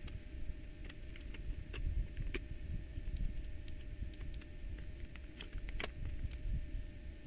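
Scattered light clicks and taps of a circuit board and plastic mixer casing being handled and fitted together, over a low handling rumble.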